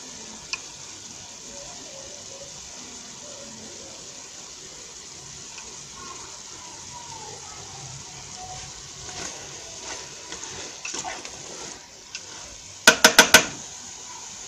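A pot of sweet potato leaves in boiling water being stirred, with a steady watery hiss. Near the end, the utensil knocks four times in quick succession on the rim of the aluminium pot, ringing briefly.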